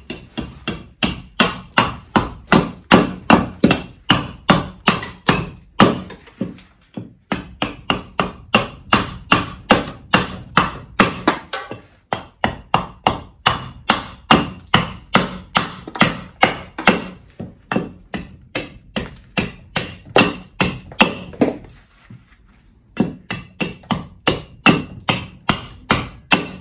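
Stihl 600 g forestry hatchet chopping repeatedly into an upright stick of green wood on a chopping block, about two to three strokes a second, with a few short pauses. The hatchet is carving a point on greenwood and, not very sharp, tends to glance out of the wood.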